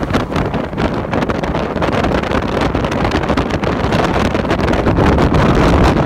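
Strong storm wind blowing across a phone's microphone: a loud, continuous rumble that buffets rapidly in gusts.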